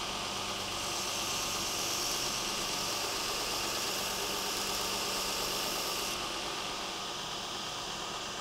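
Belt grinder running with a steady hum while a thin steel knife blade is held against the moving abrasive belt, adding a hissing grind. The grinding hiss stops about six seconds in and the belt runs on alone.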